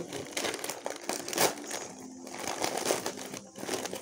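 Gift-wrapping paper crinkling and rustling as a present is unwrapped by hand, in irregular bursts with one louder rustle about a second and a half in.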